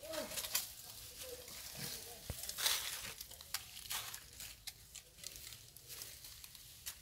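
Dry leaf litter and plastic crackling and rustling in scattered bursts as a macaque forages and walks over it. There is a short falling squeak, a monkey's call, at the very start.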